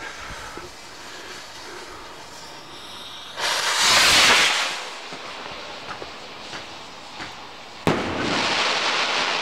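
Firework rocket launching with a loud whoosh about three and a half seconds in, then near the end a sharp bang as it bursts, followed by dense crackling from its glitter effect.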